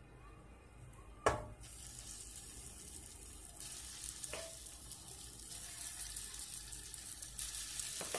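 Grated courgette, egg and flour batter going into hot oil in a nonstick frying pan: a sharp knock about a second in as the spoonful lands, then frying oil sizzling, building and carrying on.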